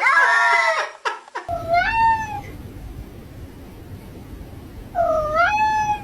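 A cat meowing twice, two long drawn-out meows about three seconds apart, each rising in pitch and then holding. The first second holds busy overlapping calls that cut off abruptly.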